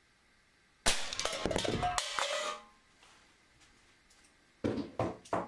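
A .22 Weihrauch HW45 spring-piston air pistol fires with a sharp crack, and the struck soda can is knocked off the bench, clattering and ringing for about two seconds. Three shorter knocks follow near the end.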